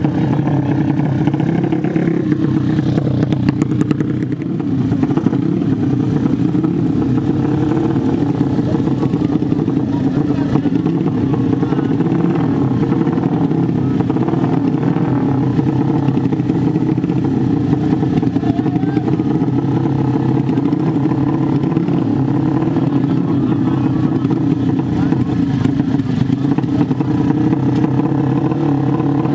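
Engines of 150 cc 'sleep engine' drag-race motorcycles, with the cylinder laid flat, running steadily at the start line.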